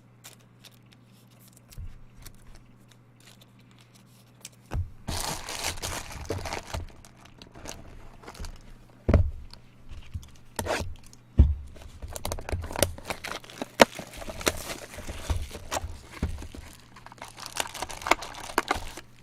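Plastic wrapping on a sealed box of baseball cards torn and crinkled, with several thumps as the box is handled; the first few seconds are quiet.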